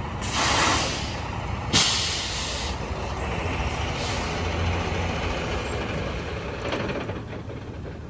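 Freightliner semi-truck's air brakes letting out two loud hisses of air, the second starting with a sharp pop, as the parking brakes are set on the parked rig, over a steady low rumble.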